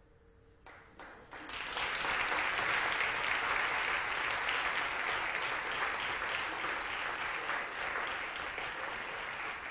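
Audience and people on stage applauding: a few single claps about a second in, swelling quickly into steady full applause that begins to thin near the end.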